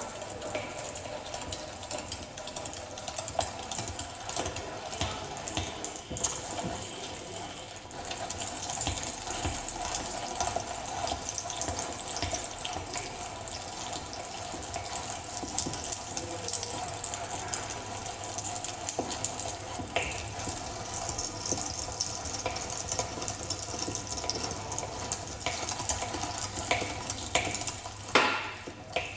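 Hand-cranked plastic meat grinder turning steadily, its auger forcing raw meat through the cutting plate with a continuous grinding noise and scattered clicks, a louder clatter near the end.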